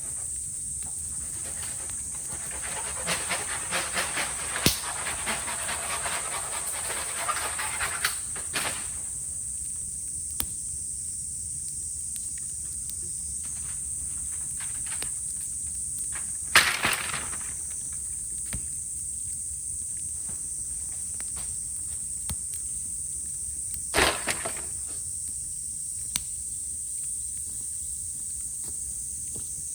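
Bamboo burning in a bonfire, crackling and hissing for a few seconds, then two sharp pops about seven seconds apart as heated bamboo bursts. A steady high cicada drone runs underneath.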